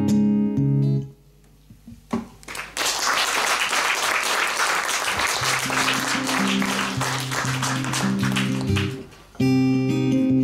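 Steel-string acoustic guitar finishing a song with a few strummed chords, cut off about a second in. Then audience applause for several seconds, with the guitar starting to pick a new tune under it; the guitar comes through clearly near the end as the applause stops.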